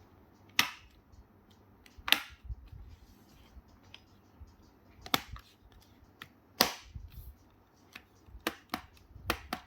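Plastic clips of a laptop's bottom cover snapping into place as the panel is pressed shut along its edge: about half a dozen sharp clicks, irregularly spaced.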